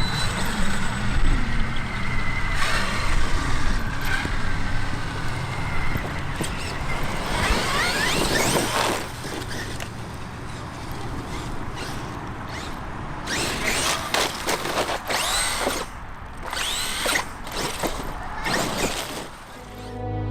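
Electric RC trucks' motors whining as they accelerate, the pitch rising sharply several times, over a steady rough noise of the trucks running on the ground.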